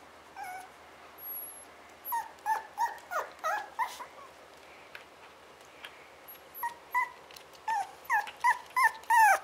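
Young puppies, about six and a half weeks old, whining and whimpering in short high-pitched cries. There is a cluster about two seconds in and a quicker run of cries near the end. The puppies are crying at being left in their pen.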